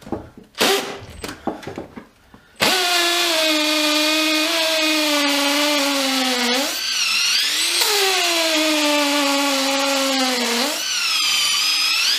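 Makita DTP141 cordless 4-mode driver in percussion (hammer-drill) mode drilling into brick with a 6 mm masonry bit, starting about two and a half seconds in after a few knocks. The motor pitch sags as the bit bites and struggles, then recovers, twice. The bit is clogging with dust as it drills.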